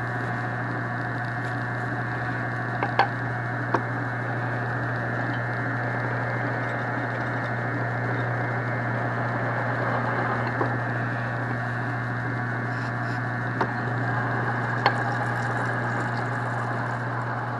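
Floor drill press running steadily with a low hum as its bit drills a pilot hole down through a metal piece. There are a few short clicks from the cut.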